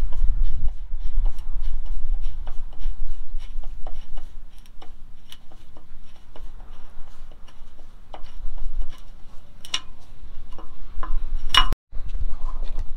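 Screws being worked out of a tarp roll tube with a long-shank screwdriver. A steady light ticking, about three clicks a second, runs over low handling rumble. The sound cuts off abruptly near the end.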